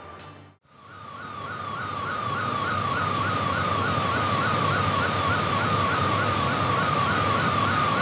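Water from the Clutha River pouring through the Clyde Dam spillway, a steady roar that fades in about a second in. Over it, a high falling tone repeats several times a second, like a warning alarm.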